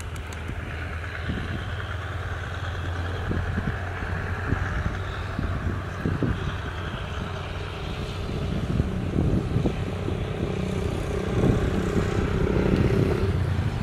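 Diesel-hauled passenger train moving away along the track: a steady low engine drone with irregular low rumbles from the running train. The sound swells louder about eleven seconds in.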